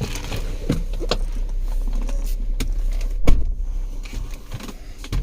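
Volkswagen Passat's 3.6 V6 idling with a steady low rumble, under the clicks, creaks and knocks of someone climbing into the car, with one loud thump about three seconds in.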